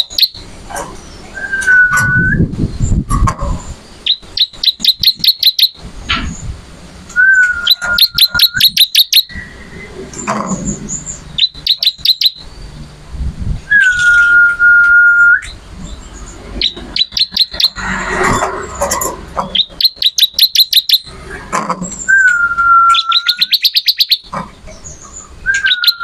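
Prinia (ciblek) singing: runs of rapid, ringing high notes, about ten a second, alternating with one long steady whistle on a lower pitch, repeated about five times.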